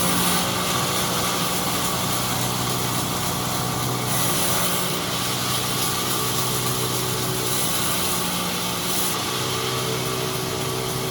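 Sawmill machinery running at a steady speed: an even engine or motor hum, with a brighter hiss that swells briefly a few times.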